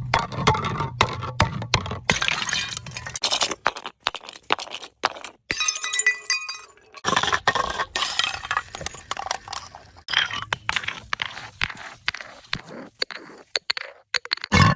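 Glass bottles clinking and shattering: a dense run of sharp impacts and crunching glass, with a few ringing glass tones about six seconds in.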